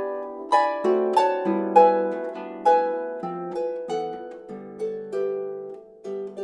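Solo lever harp played by hand. Plucked notes with sharp attacks ring on and overlap, a melody sounding over lower notes. The playing grows softer in the second half, then a fresh note is plucked near the end.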